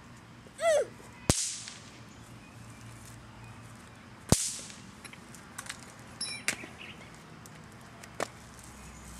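Two sharp cracks from small fireworks, about three seconds apart, each with a short ringing tail, followed by a few fainter snaps.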